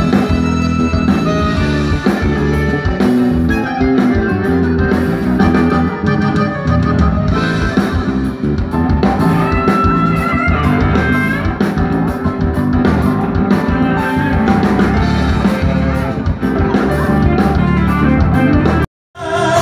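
A band playing through a large outdoor PA system, heard from the front of the stage: guitar and drum kit, loud and continuous. It cuts out abruptly for about half a second near the end.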